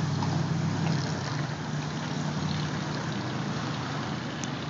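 Steady low engine hum over even background noise, with a brief high chirp near the end.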